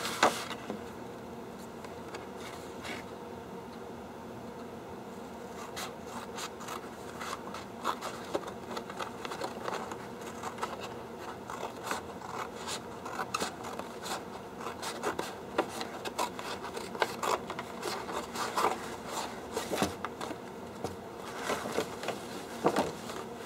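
Scissors cutting through posterboard: a run of short, irregular snips starting about six seconds in, with the stiff sheet rustling as it is moved and turned.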